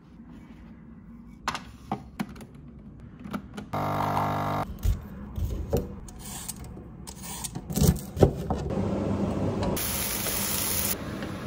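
Kitchen cooking sounds: clicks and knocks of dishes and utensils, a julienne peeler scraping strips off a carrot, and vegetables stir-frying in a pan under a wooden spoon. A brief buzz comes about four seconds in, and a short hiss near the end.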